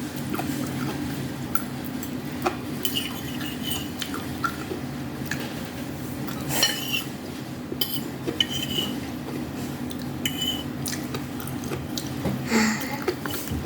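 Cutlery clinking and scraping against dishes while eating: scattered sharp clinks, a few ringing briefly, over a steady low hum.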